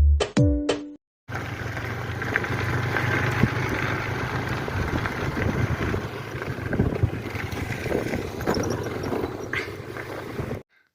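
A second of electronic background music ends abruptly. After a brief silence comes a steady low motor hum over outdoor background noise, with a few faint clicks.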